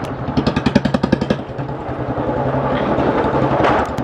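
Royal Enfield Bullet 350 with a loud exhaust, riding: its single-cylinder engine thuds in quick, even pulses, strongest in the first second and a half, over a steady low engine hum.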